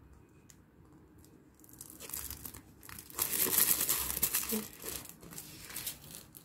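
Rhinestone transfer paper being peeled from its backing sheet: crinkling and crackling, loudest for a couple of seconds in the middle, with lighter rustles before and after.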